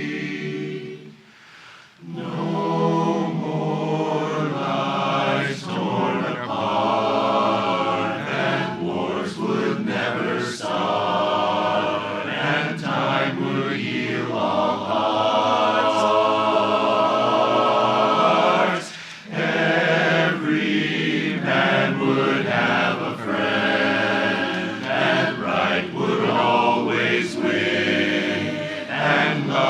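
Barbershop chorus singing a cappella in close four-part harmony, with sustained chords and a short break for breath about two seconds in and another near the 19-second mark.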